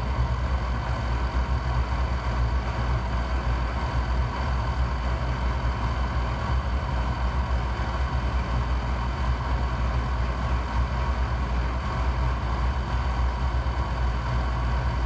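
Oil burner of a Peerless WV-05 cast-iron oil boiler running steadily with a low hum, fired again after air was bled from the oil line.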